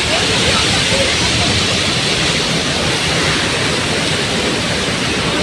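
Steady, loud rushing of falling water, an even hiss with no breaks.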